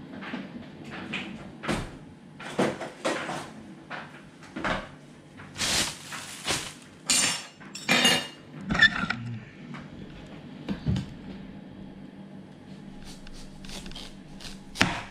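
Kitchen clatter: a run of knocks, clinks and scrapes of utensils and dishes on a countertop, busiest and loudest around the middle, then a quieter stretch. Near the end a long knife goes into a watermelon on a plastic cutting board.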